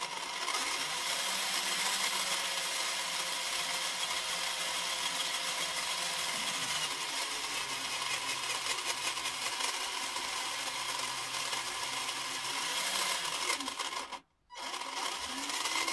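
Brushed RC motor running a knockoff SCX10-style transmission, printed driveshaft and 3D-printed differential with the wheels spinning free: a loud gear whine and rattle whose pitch shifts a few times as the throttle changes. Most of the noise comes from the motor and transmission rather than the differential. It cuts out about 14 seconds in, then runs again.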